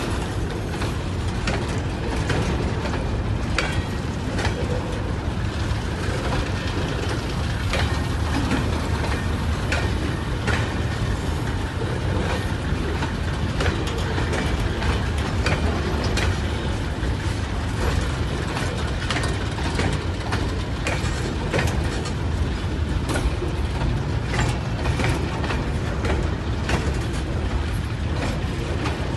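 Freight train's coal wagons rolling past close by: a steady low rumble of wheels on rail, with frequent irregular clicks and clatter.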